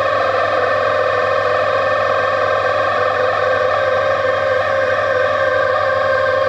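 Old LG washing machine's motor running with a loud, steady, high whine over a low hum, making too much noise: the owner believes the motor has gone bad.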